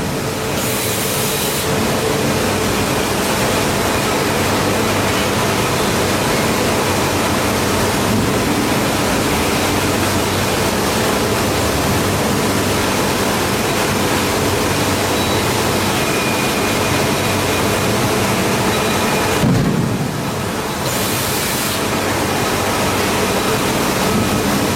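Steady, loud rushing noise with a faint steady hum running through it, typical of machinery running on a factory floor. There are no strikes or rhythmic strokes.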